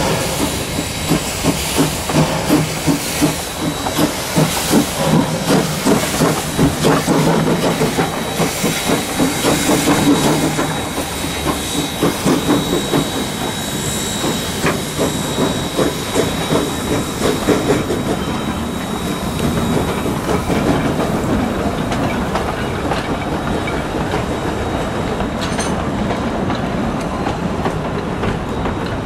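Queensland Railways C17 class 4-8-0 steam locomotive No. 720 working past under power after departing, its exhaust beating in a steady, regular rhythm with steam hissing. The beats ease after about eighteen seconds, leaving the carriages rolling past with wheels clicking over the rail joints.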